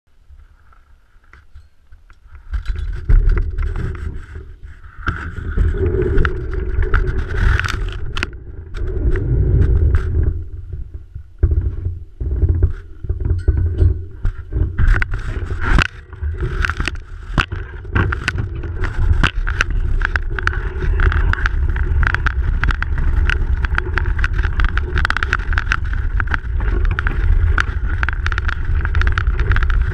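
A bicycle riding over a snow-covered road: a steady rumble of tyres and wind on the microphone, with frequent sharp clicks and knocks from bumps. It is quiet for about the first two seconds, then loud as the ride gets going.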